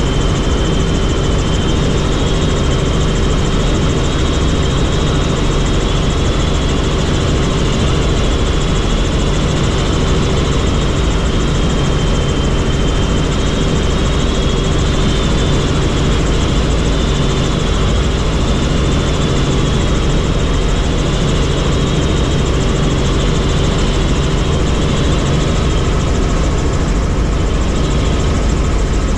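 Helicopter in flight: loud, steady engine and rotor noise, with a faint high whine above the drone.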